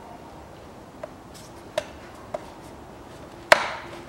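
A few sharp clicks as the oil filler cap on the Ecotec engine is screwed shut after the oil top-up, the loudest about three and a half seconds in.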